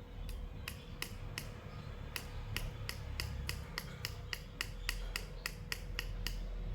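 A run of sharp clicks or taps, roughly three a second in an uneven rhythm, stopping about a second before the end, over a steady low rumble.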